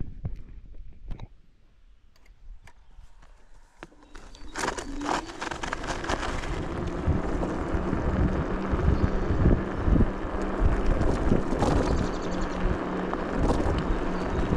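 A few sharp clicks, then from about four seconds in the engine and road noise of a moving vehicle build up and hold, with a steady low engine hum.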